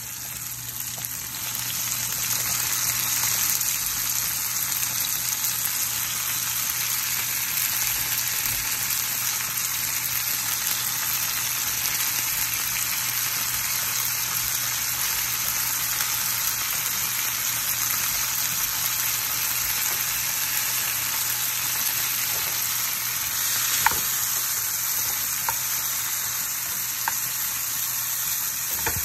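Onions, tomatoes and bacon frying in oil in a pan: a steady sizzle that grows louder about a second in, as flaked saltfish goes into the hot oil. A few light clicks of a spatula against the pan near the end.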